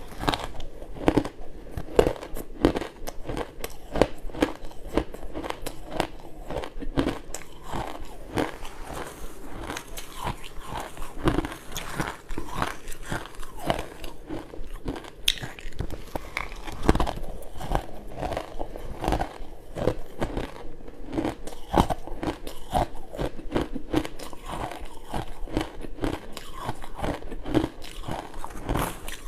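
Ice being bitten and chewed close to the microphone: a dense, irregular run of sharp crunches and cracks, one after another.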